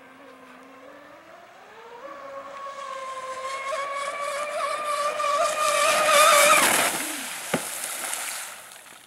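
Pro Boat Zelos 36 RC catamaran's twin brushless electric motors whining at high speed on a 6S lipo. The whine rises in pitch over the first two seconds and grows louder as the boat comes closer. About seven seconds in it drops in pitch and fades as the boat passes, with a single sharp tick soon after.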